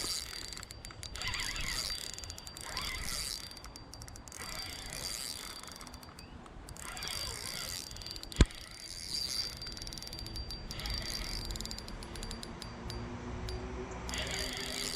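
Fishing reel clicking and whirring in rapid runs as a hooked carp is played, line going out against the drag and being wound back in. There is one sharp click about eight seconds in.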